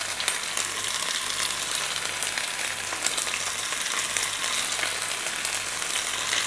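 Marinated anchovies frying in shallow hot coconut oil in a small nonstick pan over a low flame: a steady crackling sizzle with many small pops, while more fish are laid into the oil.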